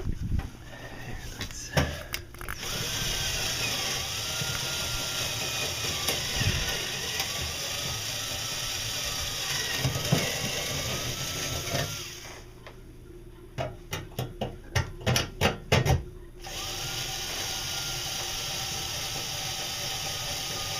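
Electric drill boring through wood, its motor whine dipping and rising as the bit bites. About two-thirds of the way through it stops for a run of sharp clicks, then starts again with a slowly falling whine.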